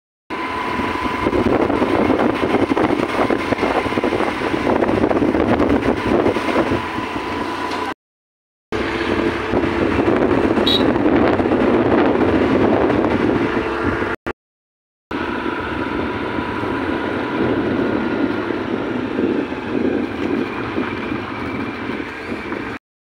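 A motorbike running along at riding speed, with engine noise and wind rushing over the microphone and a thin steady whine. The sound cuts out to silence twice.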